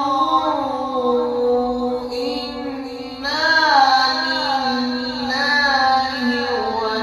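A single voice chanting in long, drawn-out melismatic notes, the pitch wavering up and down, with a fresh, louder phrase starting about three seconds in.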